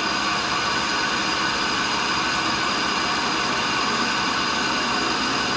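Tool and cutter grinder running steadily, its motor and spinning grinding wheel giving an even hum with several steady high whining tones.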